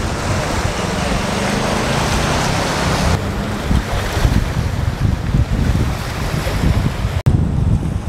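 Sea wind buffeting the microphone with a heavy low rumble, over small waves washing against a rocky shore. The sound changes about three seconds in and drops out for an instant near the end.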